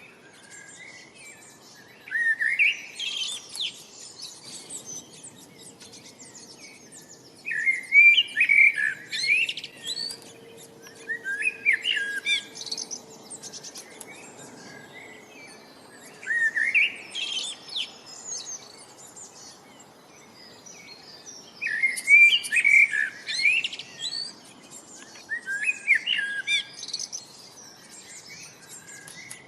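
Songbirds singing: short warbled phrases of quick up-and-down notes, about six of them spaced a few seconds apart, with fainter high chirps in between.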